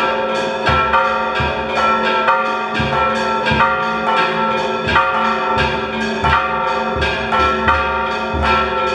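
Church bells in the tower ringing rapidly, about three strikes a second, several bells of different pitch overlapping and ringing on between strikes.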